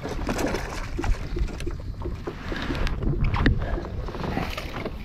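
Water splashing around a kayak as a hooked bass is fought at the side, over a steady rumble of wind on the microphone, with scattered sharp knocks and clicks that are loudest a little past the middle.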